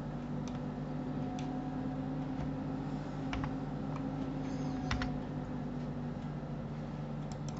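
Sparse clicks of a computer keyboard and mouse, a second or more apart with a few close together near the end, over a steady low hum.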